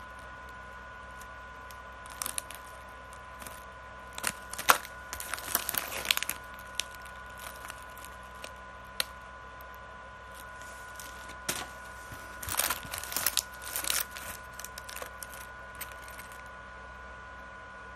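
Crinkly plastic snack packaging rustled and crackled in the hands as a bag of chips is turned over and another packet is picked up. The crackling comes in two stretches, with a faint steady high hum underneath.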